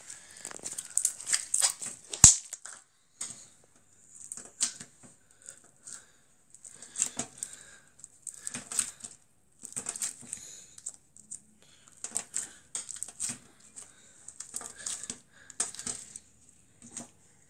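Homemade slime being squeezed and stretched by hand, giving irregular clusters of sticky crackling and popping clicks, with one sharper snap about two seconds in.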